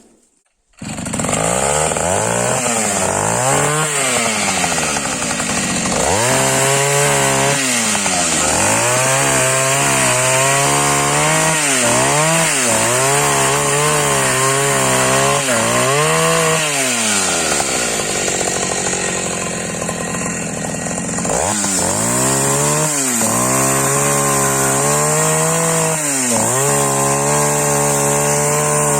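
Taiga 214 two-stroke petrol chainsaw starting up about a second in, revving, then cutting firewood, its engine pitch dipping under load with each cut. Near the two-thirds mark it drops to a lower, quieter running for a few seconds, then revs up and cuts again.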